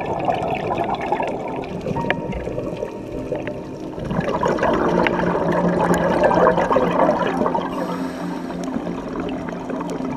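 Bubbling, gurgling water heard underwater, growing louder about four seconds in and easing off near the end.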